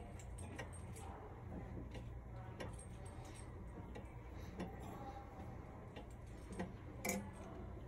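Faint, uneven ticking from a grandfather clock's movement, a single tick about every second, as the pendulum swings.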